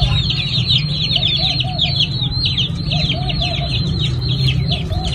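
Many chicks peeping: a dense, continuous chatter of quick high falling peeps. A few times a short run of three or four lower calls from another bird joins in.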